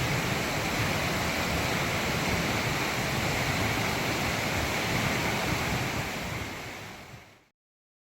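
Waterfall crashing down close at hand, a steady heavy rush of water with a deep rumble, which fades away to silence about seven seconds in.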